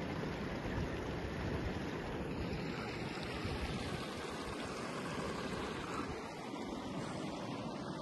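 Steady rushing of a river flowing over a stony bed, an even noise with no distinct events.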